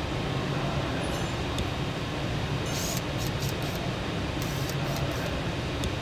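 Steady low rumble of workshop room noise, with several short, crisp hiss-like bursts in the second half.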